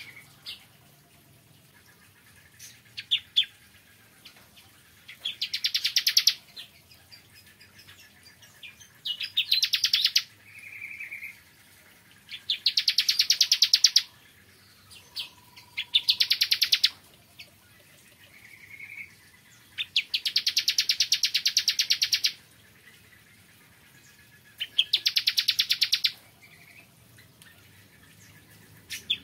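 Ciblek kristal (bar-winged prinia) singing. It gives a fast, rattling trill lasting one to two seconds, repeated about every four seconds, with a few short chirps between the trills.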